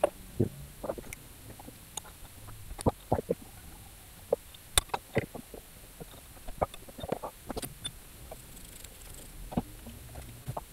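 Irregular clinks, taps and knocks of hand tools and metal parts being handled while engine covers and mounts are taken off, with one bright metallic clink near the middle.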